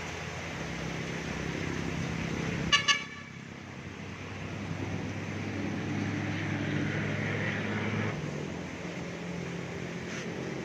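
Nearby road traffic: a motor vehicle's engine running steadily, with a quick double toot of a horn about three seconds in.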